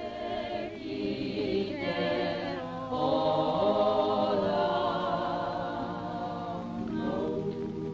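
Māori choir singing a cappella: several voices holding long chords with vibrato, moving to a new, fuller chord about three seconds in.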